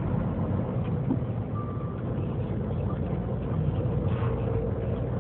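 Truck engine running steadily while driving, a low drone heard from inside the cab, with a brief high beep about a second and a half in.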